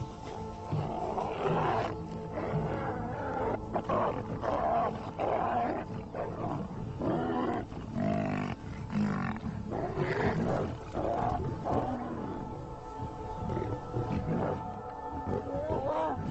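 Lions growling and roaring in a fight with a buffalo, a run of uneven calls one after another, over steady background music.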